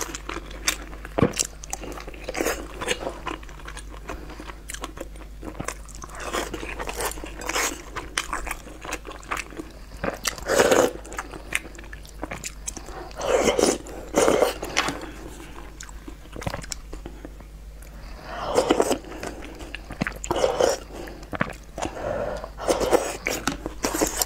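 Close-miked chewing of boiled dumplings: wet mouth clicks throughout, with several louder spells of chewing.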